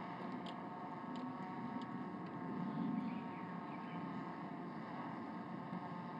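A chip shot from the rough: a soft club strike on the ball about three seconds in, over steady golf-course ambience with a constant hum and a few faint ticks.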